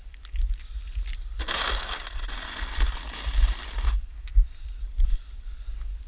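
A snow shovel scraping as it pushes through snow: one long scrape of about two and a half seconds, starting about a second and a half in, over a steady low rumble.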